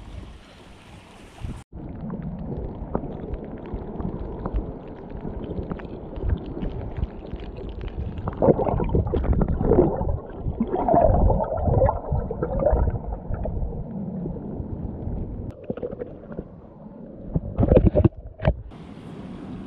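Muffled gurgling and sloshing of water, heard through a camera held underwater in a tide pool, with stronger surges about eight to thirteen seconds in. For the first couple of seconds, before the camera goes under, the open-air surf and wind are heard.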